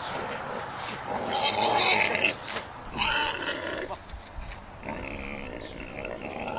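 An animal calling in rough, noisy bursts, the loudest about one and a half to two seconds in, followed by weaker calls.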